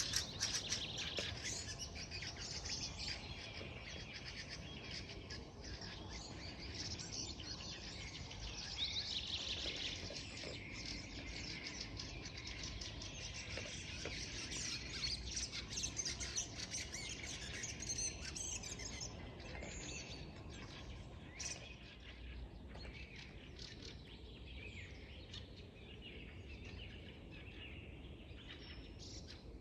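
Many small birds chirping and singing at once over a low steady rush of wind. The birdsong is dense at first and thins out after about twenty seconds.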